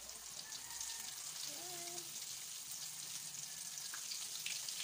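Breaded chicken pieces deep-frying in hot oil: a steady sizzling hiss with fine crackling, growing a little louder as more pieces go into the pan.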